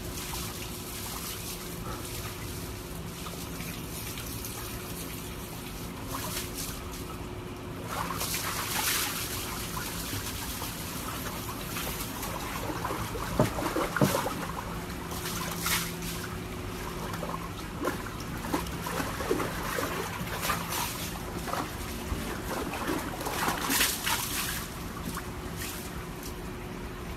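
Water sloshing and splashing in a plastic tub as a Siberian husky moves about in it, with louder bouts of splashing about a third of the way in and again through the second half. A faint steady hum runs underneath.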